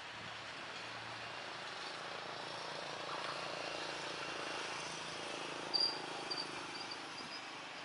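Road vehicles passing close by, a steady rush that swells about three seconds in, with a few short high chirps near the end.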